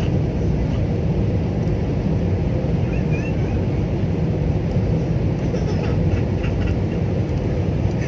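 Steady roar of an Airbus A320-family jet airliner heard from inside the cabin at a window seat: engine and airflow noise during the low descent on approach to landing.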